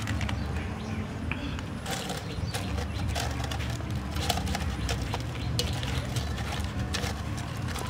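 Cut banana blossom pieces rustling and knocking against the inside of an aluminium cooking pot as they are packed in by hand, a quick run of light clicks and taps over a steady low rumble.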